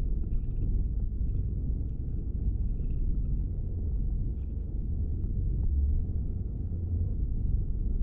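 Steady low rumble of tyre, road and engine noise heard inside the cabin of a Buick HRV hatchback while driving.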